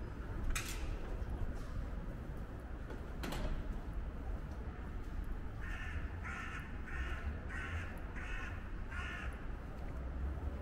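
A crow cawing six times in a quick, even series past the middle, over a steady low rumble. Two sharp knocks come before the calls, about half a second and three seconds in.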